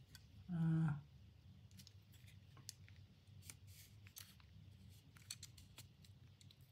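Insize digital caliper's sliding jaw being pushed along its beam: faint, scattered metallic clicks and scrapes.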